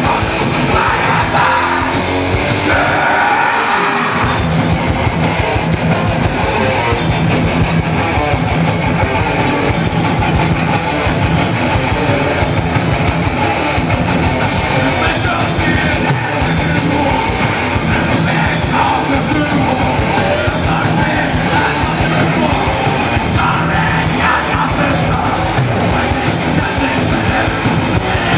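Thrash metal band playing live: distorted electric guitars, bass and fast drums at full volume. The low end drops out for a moment about three seconds in, then an even pulse of about three strokes a second drives through the first half.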